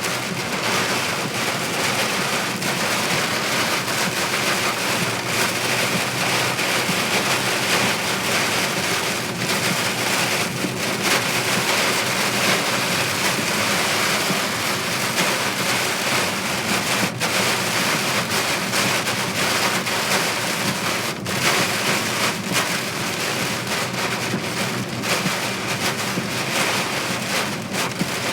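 Heavy rain pelting a moving car, a steady loud hiss with a dense patter of individual drop hits.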